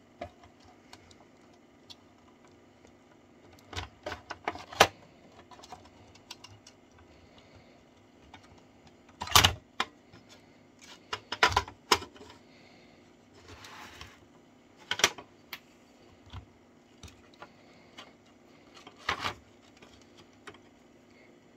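Plastic clicks and knocks as the housing of a Unitra ZRK MK 121 cassette recorder is prised open and handled. They come a few at a time with quiet gaps between, the loudest about nine and a half seconds in.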